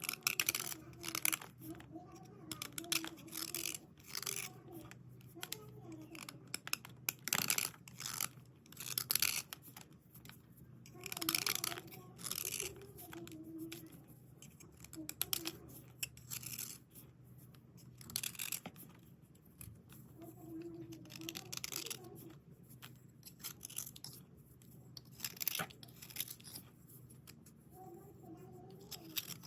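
Dry scratching and rubbing strokes on chalky slate pieces during dry cleaning, in irregular bursts of a fraction of a second to about a second each.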